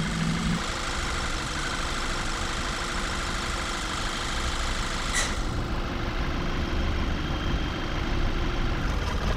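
VW Tiguan 2.0L TSI turbocharged four-cylinder idling steadily while misfiring, which scan data puts on cylinders 1 and 3. A single brief sharp click about five seconds in.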